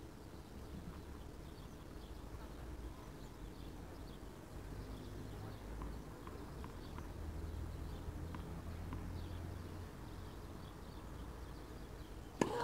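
Quiet tennis-court ambience with a low steady rumble and a few faint ticks, then near the end a single sharp crack of a racket striking a tennis ball.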